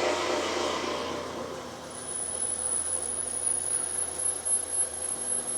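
Milling machine running, reaming a stud hole in a steel wheel spacer under power down feed at a raised spindle speed. A steady high-pitched whine sets in about two seconds in, over a low steady hum.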